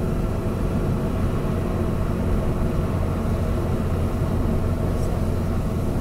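Car in motion heard from inside the cabin: a steady low rumble of engine and tyre noise on the road.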